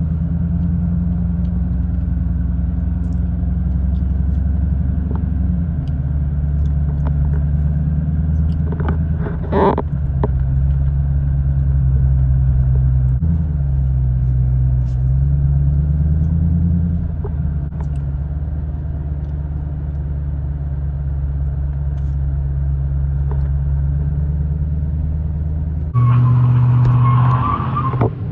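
Car engine heard from inside the cabin, running steadily at low speed, its pitch rising and falling a little as the driver eases on and off the throttle, with a brief clatter about ten seconds in. Near the end a louder stretch takes over: a pickup truck revving with a squeal of tyres in an attempted burnout.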